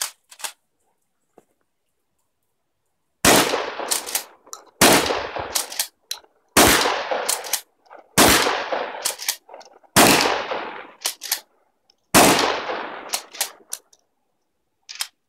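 Remington 870 12-gauge pump-action shotgun fired six times, about one and a half to two seconds apart, each shot echoing for about a second, with short clacks of the pump being worked between shots. The gun fires on every pull, its repaired firing pin working.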